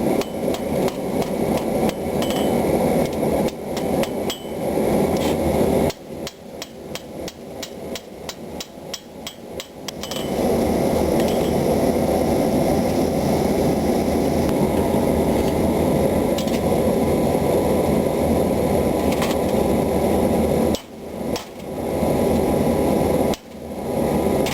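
Hammer forging steel: rapid, evenly spaced blows, about five a second, over a loud steady rushing noise. The rushing drops away for a few seconds about a quarter of the way in, leaving the blows standing clear.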